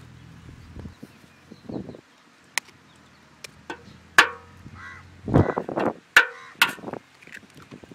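A knife blade cracking eggs open: several sharp taps of the blade on the shells, with the shells crunching and splitting as the eggs are broken over the mixture.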